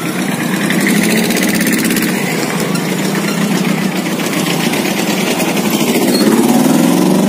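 Motorcycle engine running at low speed, the pitch rising and then falling near the end.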